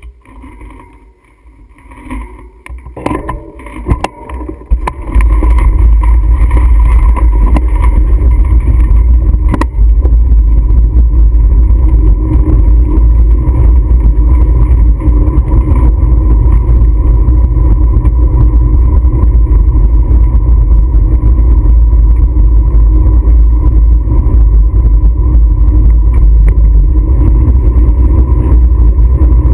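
Motorcycle setting off with a few knocks, then riding with a loud, steady low rumble of engine and wind on the camera microphone from about five seconds in.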